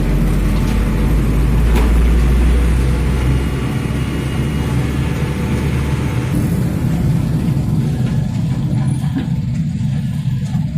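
Excavator's diesel engine running steadily, its deepest rumble easing off about three and a half seconds in.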